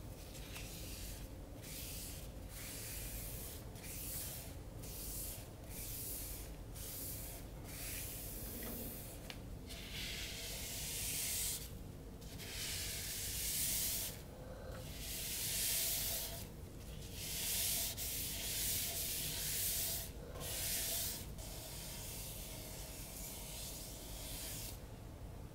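A folded paper towel pad held against a figured maple bowl spinning on a wood lathe, rubbing on finish: repeated hissing wipes, short at first and longer from about ten seconds in, over the faint hum of the lathe.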